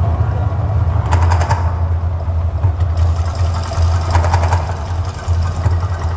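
Mirage volcano show eruption: a loud, deep, steady rumble with short bursts of crackling about a second in and again around four seconds in, as the flame jets fire.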